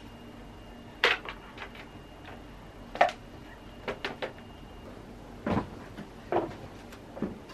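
Irregular knocks and clunks of objects being handled and set down, about eight in all, the loudest about one and three seconds in.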